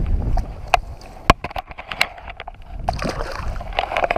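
Small bass released into shallow pond water: a brief splash and slosh about three seconds in, over wind rumble on the microphone and a few sharp handling clicks.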